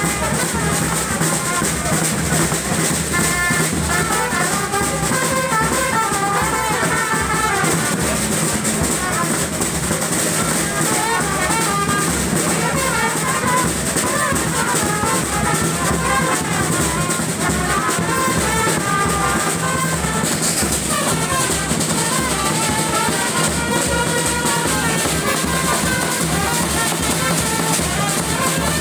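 A small brass band playing live: trumpets carrying a melody over a steady drum beat.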